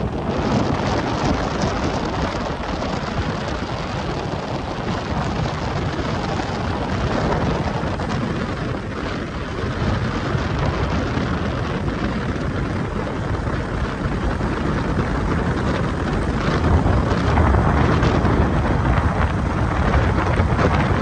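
Wind buffeting the microphone over the steady rumble of a car driving on a paved road, swelling a little near the end.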